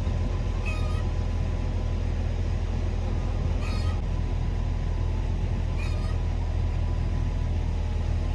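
Excavator engine running steadily while it lowers a log hung on a chain from its bucket, with three short squeaks along the way.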